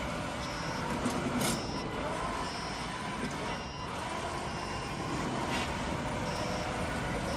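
Small petrol engine of a remote-control lawn mower running steadily. Short high beeps sound about once a second over it.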